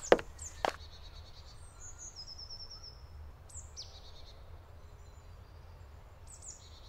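Forest ambience: small birds chirping, with a quick trill of short notes and a few high, falling chirps, over a steady low rumble. Two sharp clicks near the start.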